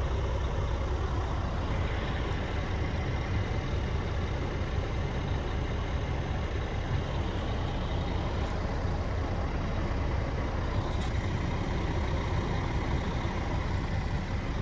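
Scania G480 truck's 13-litre inline-six diesel idling steadily, heard from inside the cab as an even low rumble.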